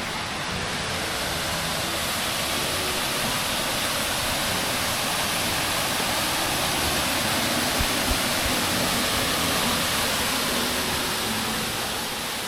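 Waterfall rushing: a steady, dense hiss of falling water. Two brief low bumps come about eight seconds in.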